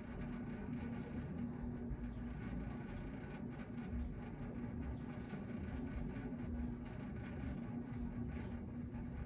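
Steady mechanical hum: a constant low tone over a rumble, like a running motor or vehicle.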